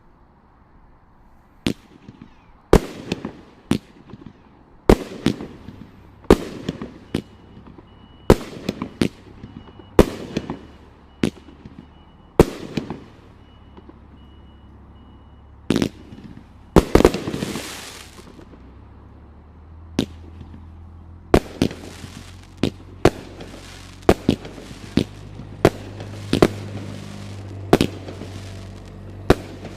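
A 31-shot, 500-gram consumer fireworks cake firing, shot after shot: sharp reports with rumbling tails, about one a second at first, then coming faster and a little lighter in the second half. One longer rushing burst stands out midway.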